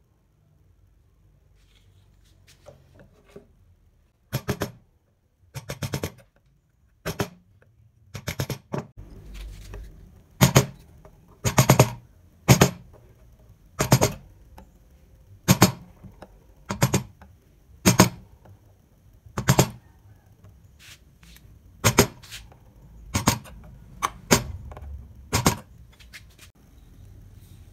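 A 5 mm semicircular carving gouge being driven into wood with a mallet, about twenty sharp knocks roughly one a second, some in quick pairs, starting a few seconds in. The gouge is cutting and rounding out a carved relief.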